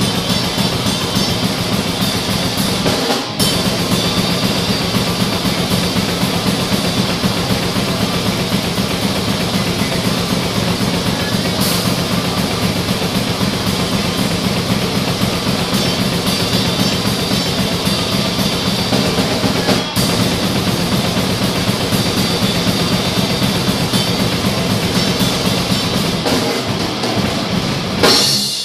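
Drum kit played continuously: dense, rapid drumming of bass drum, snare and cymbals, with a loud hit near the end.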